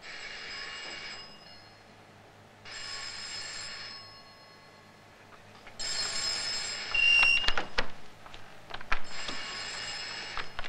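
Telephone bell ringing four times, each ring lasting one to two seconds with a pause between. Sharp clicks and knocks come in the second half.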